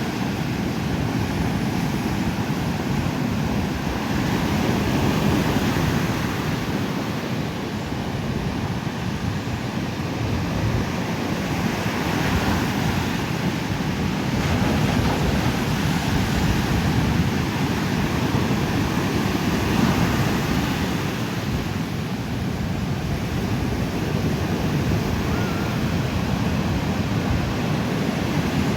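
Ocean surf breaking and washing on a sandy beach, a continuous rush that swells and eases every few seconds, with some wind on the microphone.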